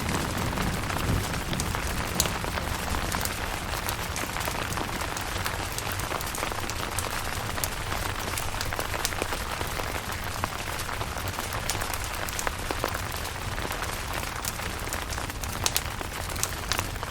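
Steady rain falling on a camping tent, with many sharp individual drop ticks over the even hiss. A low thunder rumble dies away in the first second or so.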